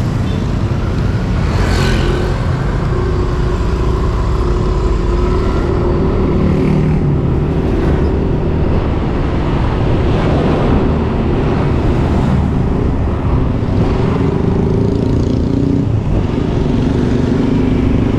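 A motorcycle being ridden along a road: its engine runs steadily under a dense low rumble of wind and road noise, with the engine note rising and falling a few times as the throttle changes, and passing traffic around it.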